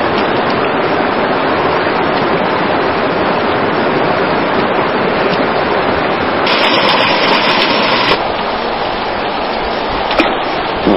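Steady rush of water pouring out where a river emerges from the ground. About six and a half seconds in, it turns brighter and hissier for about a second and a half, and there is a short click near the end.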